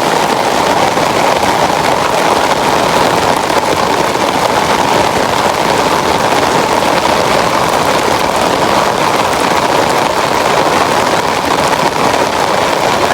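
Rain pouring down, a loud, steady, even noise.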